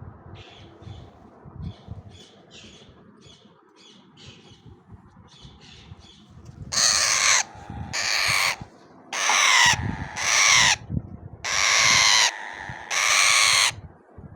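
Indian ringneck parakeet chicks calling: soft, short chirps two or three times a second at first, then from about halfway six loud, harsh squawks, each under a second long.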